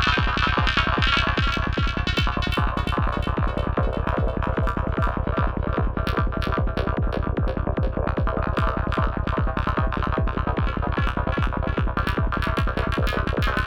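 Psytrance loop played from a VCV Rack software modular synth patch: a fast, steady pulsing kick and bass with a dense layer of synth sounds above it.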